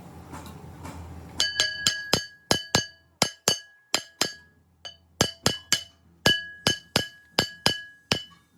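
Hammer striking a steel part: some two dozen sharp, ringing metallic blows in uneven runs of two to three a second, starting about a second and a half in.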